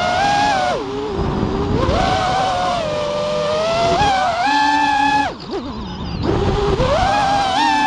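Racing quadcopter's electric motors and propellers whining, picked up by the onboard camera, the pitch stepping up and down with the throttle; the propellers are beaten up. About five seconds in the whine drops away sharply as the throttle is chopped, then climbs again near the end.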